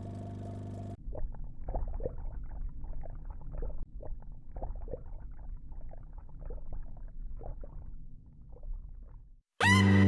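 A steady low hum stops about a second in. A low rumble with irregular crackles follows, then cuts out, and the song's loud electronic music starts abruptly near the end.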